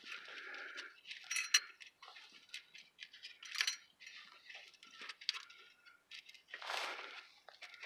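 Metal tailpipe repair clamp clinking and clicking against the exhaust pipe as it is fitted by hand. Scattered light clinks, a few with a short ringing, and a longer scrape near the end.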